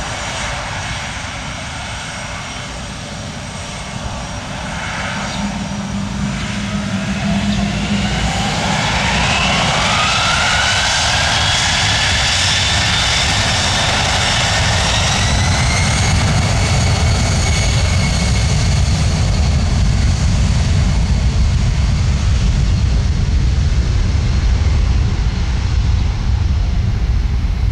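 Boeing C-17 Globemaster's four Pratt & Whitney F117 turbofan engines spooling up: a whine climbs in pitch over several seconds, then holds, while a heavy low rumble grows louder and stays.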